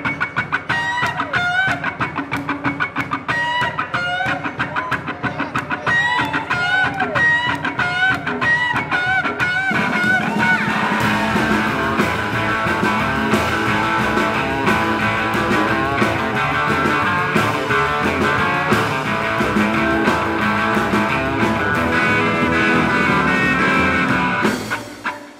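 Live rock'n'roll band instrumental: electric guitar playing a repeated lick with bent notes over drums and upright bass. About eleven seconds in the full band plays harder and denser, and the tune stops abruptly near the end.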